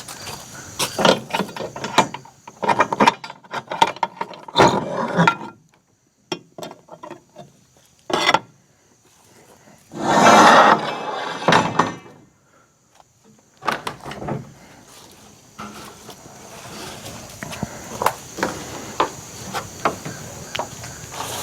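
Metal clunks, clicks and knocks as a portable band sawmill is opened up by hand, with a loud scraping rush lasting about two seconds near the middle and lighter clicks and steps toward the end.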